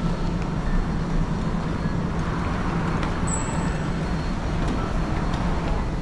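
Steady low mechanical rumble with a hum, with a brief high tone about three seconds in.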